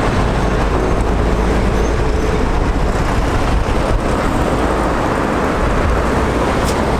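Steady road noise of a moving vehicle heard from inside the cabin: a low engine and tyre rumble at an even level.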